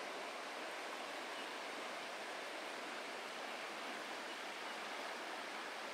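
Steady rushing of a shallow river flowing over rocks and stones.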